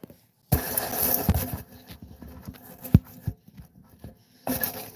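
Handling noises as an object is shifted: a scraping, rustling stretch about half a second in, then scattered knocks with one sharp knock about three seconds in, and another short scrape near the end.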